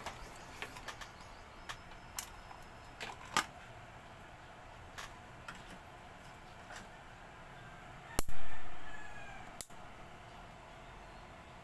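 Light clicks and knocks from handling a stand fan's motor housing and wire grille. About eight seconds in there is one much louder sudden sound that fades over about a second, followed by another click.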